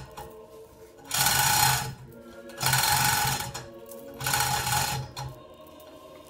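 Electric hoist motor run in short bursts, three times, each under a second and about a second and a half apart, jogging the hanging Willys Jeep engine into line with its gearbox.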